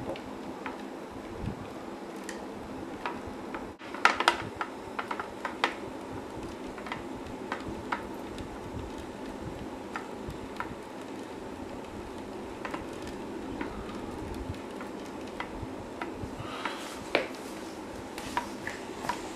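Hand-cranked penny kinetic sculpture turning: scattered light clicks and ticks from the crank mechanism and swinging pennies, thickest in a flurry about four seconds in, over a steady low hum.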